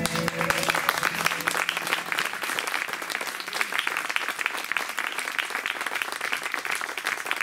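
Audience applauding, many hands clapping in a dense patter, as the music ends; the last low notes fade out in the first couple of seconds.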